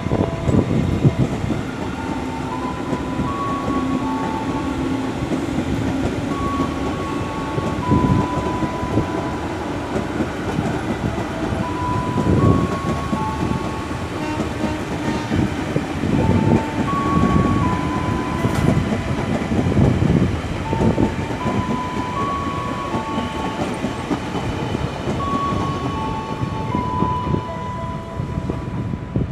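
Electric commuter train passing, its wheels clattering and thumping over the rail joints; the thumps die away after about twenty seconds. A slow melody of single high notes repeats over it.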